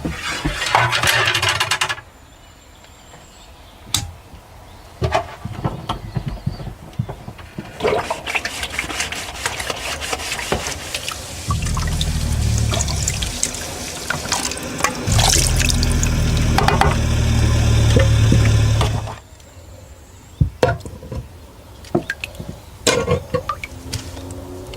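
Water running into a sink in bursts, with clicks and knocks of handling between them. A low steady hum runs under the longest stretch of running water and stops with it.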